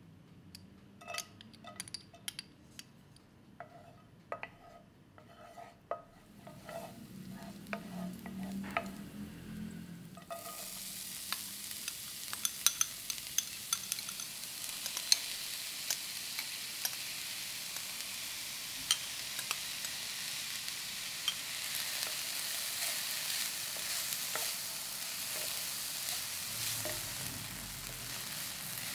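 Frying pan of hot olive oil giving a few light ticks and pops, then a sudden steady sizzle about ten seconds in as chopped vegetables go into the oil. The sizzle goes on with scattered crackles while the vegetables are stirred with a wooden spatula.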